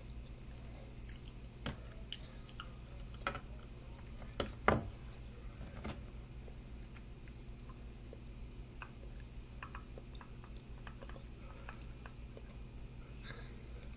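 Soft chewing and handling sounds with a few sharp clicks, the loudest about four and a half seconds in, over a low steady hum.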